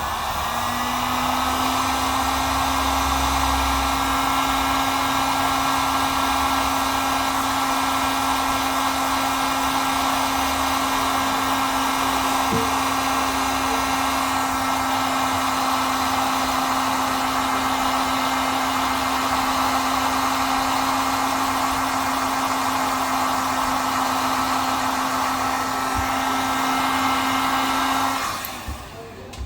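Heat gun blowing hot air steadily, its fan and motor whining up to speed at the start and switching off about a second before the end; it is heating the glass to soften the glue beneath.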